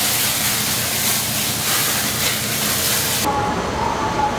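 Burger patties and onions sizzling on a flat-top griddle in a flare of flame, a loud, dense hiss. It cuts off suddenly about three seconds in, giving way to quieter street sound.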